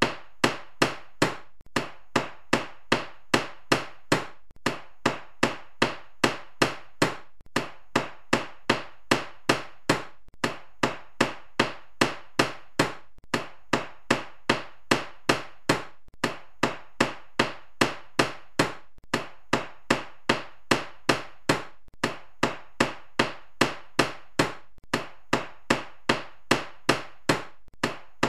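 Carpenter's hammer striking steadily, about two to three blows a second, with a brief pause about every three seconds.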